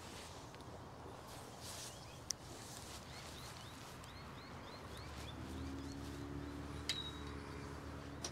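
Quiet lakeside ambience: a small bird gives a quick run of short rising chirps, about three a second, between about three and five seconds in. A steady low hum sets in around the five-second mark, with a couple of faint clicks.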